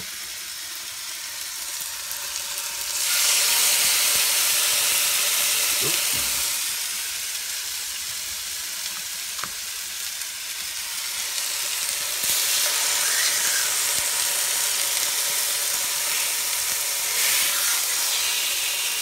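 Marinated pork chops frying in hot oil in a flat pan, a steady high sizzle that grows louder about three seconds in and again about twelve seconds in as more chops go into the pan.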